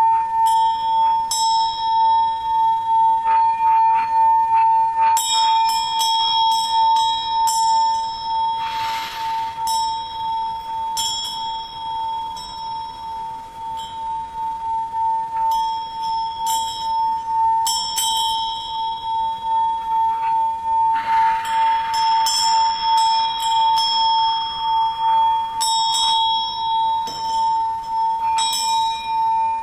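A Tibetan singing bowl holds one steady, pulsing hum while small high-pitched bells are struck again and again over it, each ringing out. A soft whoosh comes in about nine seconds in and again past twenty seconds.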